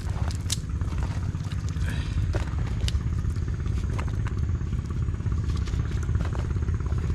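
A small engine running steadily with a fast, even low pulse, with scattered clicks and knocks over it.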